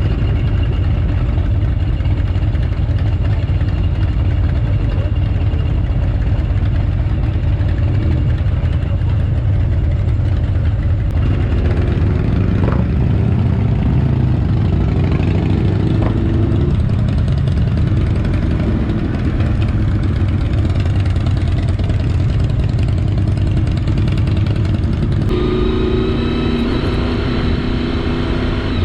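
Honda VFR 750 V4 engine running under way, heard from a helmet camera over a steady low rush of wind. The engine note comes up strongly twice, about a third of the way in and again near the end, as the bike accelerates.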